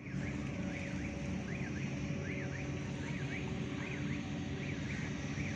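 A bird calling over and over, a short zigzagging chirp that goes up, down and up again about every three-quarters of a second, over a steady low hum.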